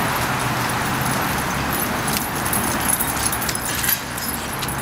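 Steady outdoor city background noise, with light metallic jingling and small clicks from about two seconds in, and a brief handling bump near four seconds.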